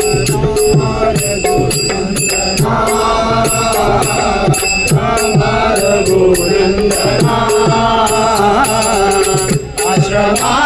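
Devotional bhajan music in raga Bhairavi: sustained accompaniment tones with percussion keeping a steady beat, and a singing voice coming in a few seconds in with a wordless ālāp.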